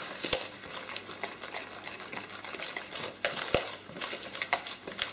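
Metal spoon stirring a crumbly churro dough in a plastic mixing bowl, with quick, irregular scrapes and clicks against the bowl. Two sharper knocks come about a third of a second and three and a half seconds in.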